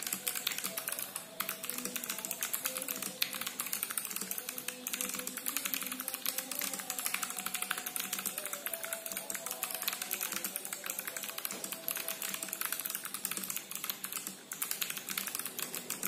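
Continuous fast typing on a TG4X 40% mechanical keyboard with spring-lubed Kailh Box White clicky switches in an acrylic case: a dense stream of crisp key clicks. Faint music plays underneath.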